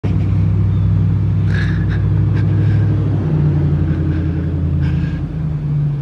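Low, steady mechanical drone of a running engine or machine, changing its tone slightly about three seconds in.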